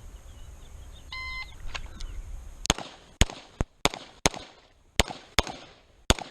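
Shot timer start beep about a second in, then a rapid string of 9mm pistol shots from a Beretta 92 Elite LTT, about two to three a second, running on past the end.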